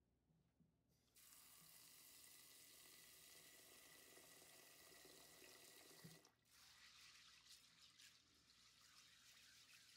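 Faint tap water running into a bowl of dry soybeans, starting about a second in and shutting off after about five seconds. Then hands swishing and rubbing the soybeans in the water to wash them, with small irregular splashes and clicks of beans.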